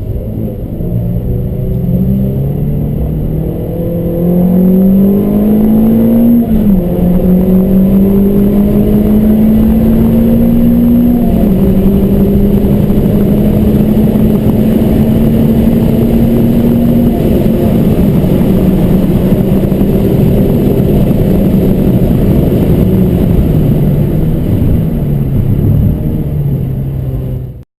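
Car engine accelerating hard through the gears, its note climbing and dropping sharply at two upshifts. It then holds a steady pitch and winds down with a few downshifts over a steady hiss of road noise, and the sound cuts off abruptly at the end.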